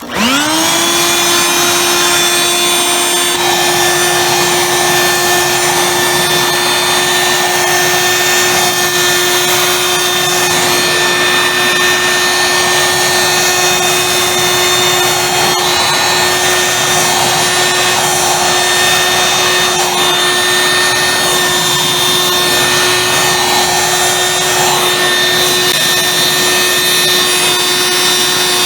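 A Dirt Devil corded handheld vacuum cleaner is switched on. Its motor spins up quickly to a steady whine and runs on, drawing air through the hose to suck up dirt and dog hair.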